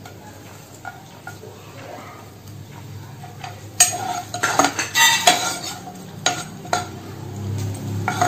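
A metal spoon clinking and scraping against a pan while stirring chopped onion and garlic frying in a little oil, with a faint sizzle underneath. The clinks come in a quick run from about halfway through.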